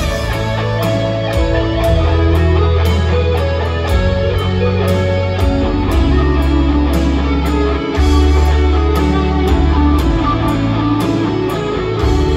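Live amplified rock-style music heard from within an arena audience, guitar-led, with deep bass notes that change about every two seconds.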